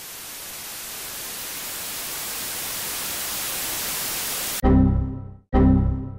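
Static hiss swelling steadily louder, then cut off abruptly about four and a half seconds in by a loud, buzzing electronic alarm tone that repeats in pulses just under a second long, signalling a system error.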